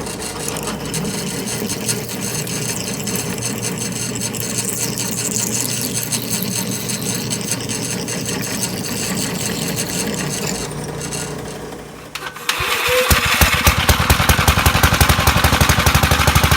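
A small engine: a steady running sound that fades out about twelve seconds in, then an engine starts and runs louder with a rapid, even pulse.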